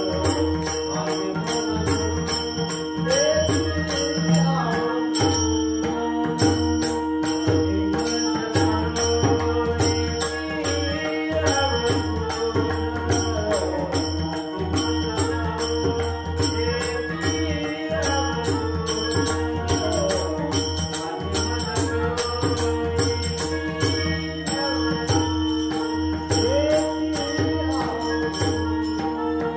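Devotional song: a voice singing over a steady held drone, with a quick, even rhythm of high jingling percussion throughout.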